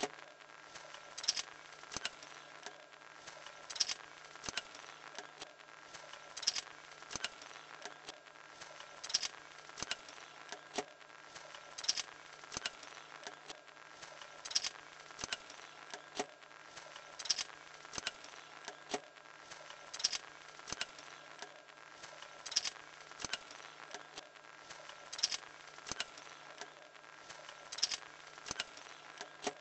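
Homemade wooden-stick drawing machine running on a small electric motor: a steady low hum with a sharp click about every two and a half seconds from the linkage as the pencil arm swings through its arc, and lighter ticks between.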